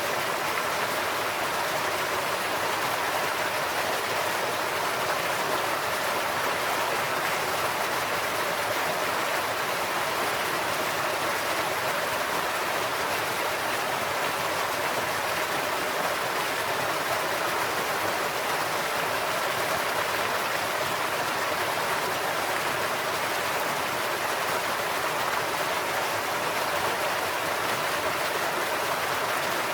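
Stream water pouring over the edge of a concrete farm road that crosses the creek, a steady rushing splash with no breaks.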